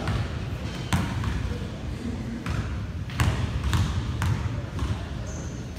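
Basketball bouncing on a gym floor, a few sharp separate bounces, as a player dribbles at the free-throw line before shooting a free throw.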